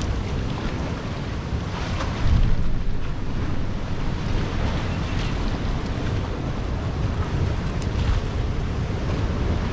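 Sea surf washing and churning against rocky shore ledges, with wind rumbling on the microphone; it swells briefly louder a little over two seconds in.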